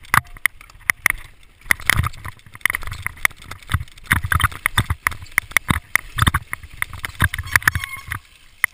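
Mountain bike clattering and knocking as it rides fast over a rocky trail, with rapid, irregular rattles and thuds from the bike and its tyres striking stones. The clatter thins out near the end.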